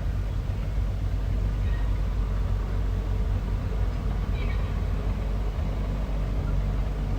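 Bulldozer's diesel engine running steadily at a constant pitch, with a faint short high sound about four and a half seconds in.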